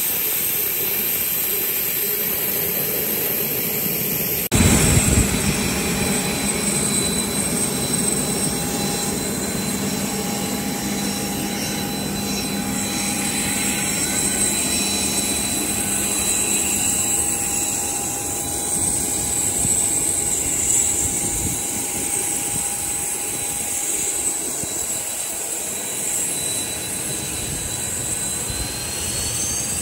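Boeing 737-800's CFM56-7B turbofan engines running steadily: a rushing noise with a high whine over it. About four and a half seconds in the sound jumps abruptly louder, and near the end a high whine rises in pitch.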